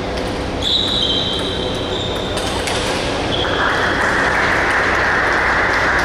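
Table tennis balls clicking off bats and tables during play in a hall, over a loud steady din. A high thin whine holds for a second or two near the start, and a steady hiss comes in about halfway.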